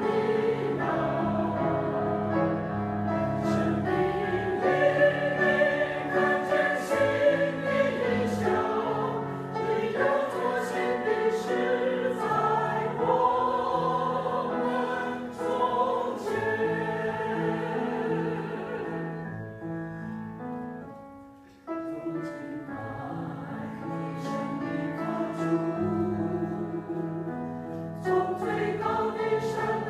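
Choir singing a slow piece with long held notes over accompaniment. The music fades to a brief pause about two-thirds through, then picks up again.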